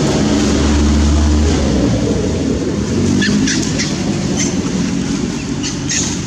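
Motor vehicle engine running steadily, a low hum that is strongest in the first second or so. A few short high chirps come over it in the second half.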